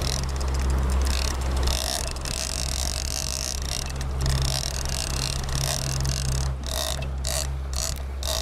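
Boat engine running steadily under way, a low steady hum with water and wind rushing over it.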